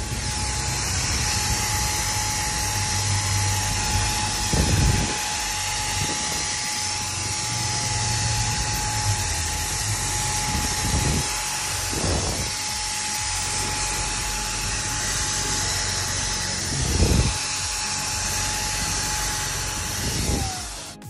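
Handheld electric paint sprayer running steadily while spraying liquid wrap: a constant high whine over a hiss of spray, with a few low bumps. Near the end the whine falls in pitch as the sprayer winds down.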